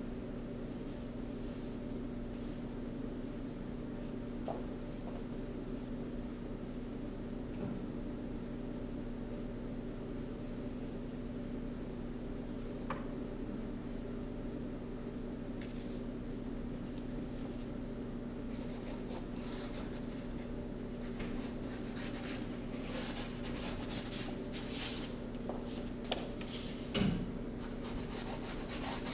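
A paintbrush scratching and dabbing paint onto a brown cardboard-like board, a dry rubbing sound. The strokes come thick and fast in the second half. A steady hum runs underneath, and a soft knock comes near the end.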